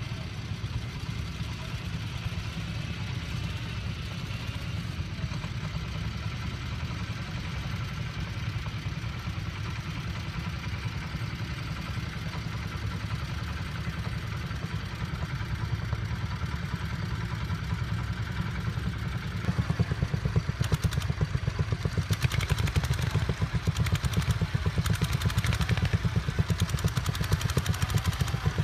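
Vintage tractor engine running steadily with a rapid, even beat, getting louder about two-thirds of the way through.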